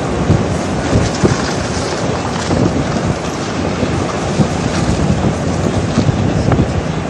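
Strong storm wind rushing and buffeting the microphone, with scattered thumps.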